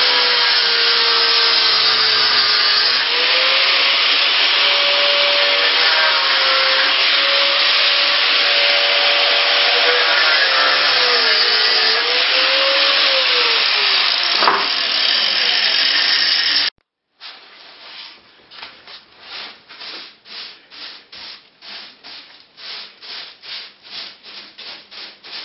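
Angle grinder grinding old tile adhesive off the floor, its motor whine dipping and rising as it bites, with a sharp knock near the end of the grinding. Then a broom sweeping up the dust in quick rhythmic strokes that speed up.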